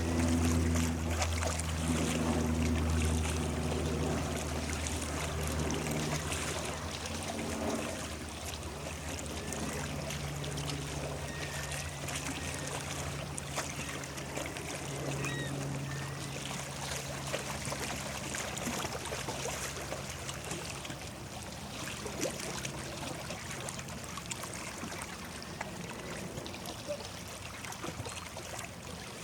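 Water lapping and trickling at the shore under a low, steady engine drone, which is loudest in the first several seconds and then fades.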